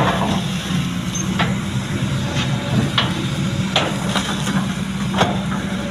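Kobelco SK200 hydraulic excavator's diesel engine running steadily under work, with a sharp knock or clank about every one to one and a half seconds.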